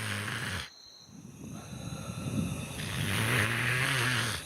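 A man snoring in his sleep: a raspy snore that stops under a second in, then a longer one that builds up and cuts off near the end.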